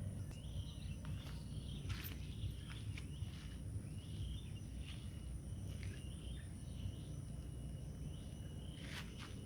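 Insects calling in a steady high drone, with scattered light clicks and rustles and a constant low rumble underneath.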